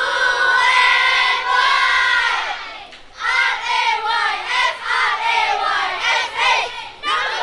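A cheerleading squad shouting a cheer in unison with many high voices. There is a short break about three seconds in, then a quick, rhythmic run of chanted syllables.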